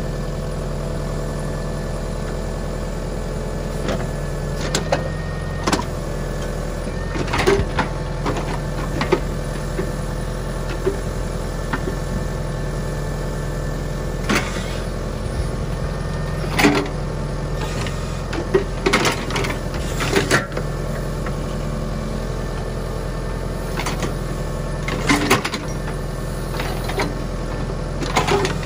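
John Deere 6300 tractor's four-cylinder diesel engine running steadily while it powers a rear-mounted backhoe. Scattered clanks and knocks come from the backhoe's boom and bucket as it digs and moves dirt.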